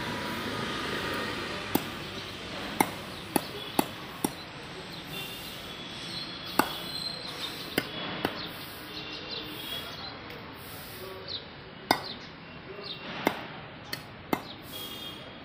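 About a dozen sharp, irregularly spaced knocks of a curved blade chopping fish on a wooden block, with birds chirping faintly.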